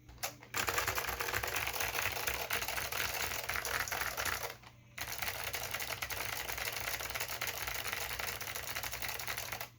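Fast typing on an Acer KB-101AS keyboard with clicky Alps SKCM Blue switches: a dense stream of key clicks, with one brief pause near the middle.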